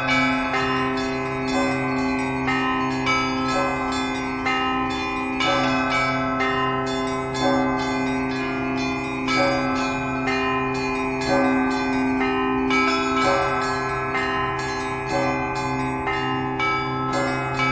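Russian Orthodox church bells rung by hand in a continuous peal (zvon). Small bells are struck rapidly, several times a second, over middle bells, with louder strokes about once a second and a deep bell tone humming steadily underneath.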